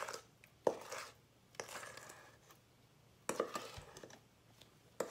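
Spatula scraping and knocking the last of a thick chocolate cake batter out of a mixing bowl into a cake tin: a few sharp knocks, with softer scraping between them.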